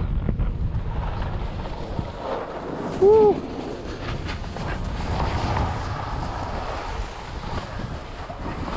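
Wind buffeting the microphone of a skier's camera, with a steady low rumble, over the hiss of skis sliding on packed snow as the skier slows into a lift line. About three seconds in comes one short call that rises and falls in pitch, the loudest sound.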